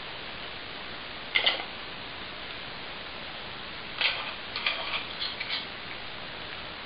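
Plastic bottles knocking and rattling in a wooden dog puzzle rack as a small dog noses at them: a short clatter a little over a second in, then a longer run of clattering from about four seconds to five and a half, over a steady hiss.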